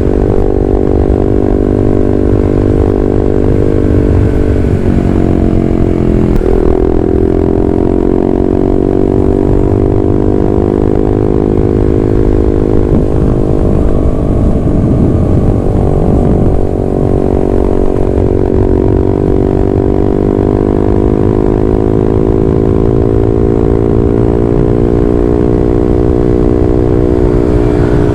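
Honda CB150R's single-cylinder engine through an aftermarket WRX GP6 K1 slip-on silencer and stainless Blue Moon header while riding, a deep, bassy exhaust note whose pitch rises and falls, with a brief drop about six seconds in as the rider shifts. Wind rumbles on the microphone.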